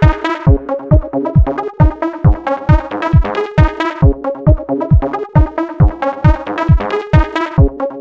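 Electronic dance music: a steady kick drum a little over twice a second under repeating synthesizer chords.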